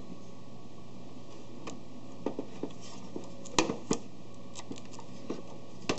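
Scattered light clicks and taps of plastic parts as the toothed drive belt is worked into a Sharp AL copier's scanner carriage by hand, the loudest about three and a half seconds in, over a steady low hum.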